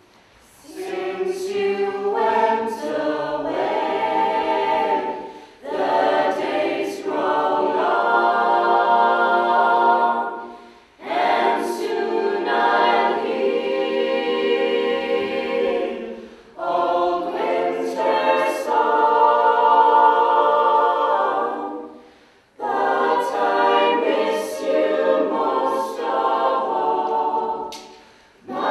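A group of voices singing a cappella, in phrases of about five to six seconds with short breaths between them.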